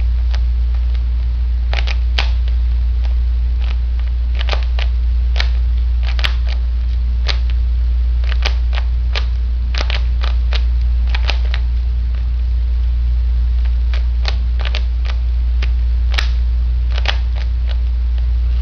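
Rubik's Cube being scrambled by hand: irregular clicks and clacks of the plastic layers turning, some in quick runs, over a steady low hum.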